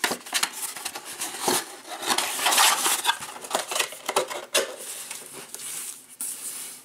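Hands handling a cardboard trading-card box and a stack of wrapped card packs: irregular rustling and crinkling of the wrappers, with light taps and knocks of cardboard.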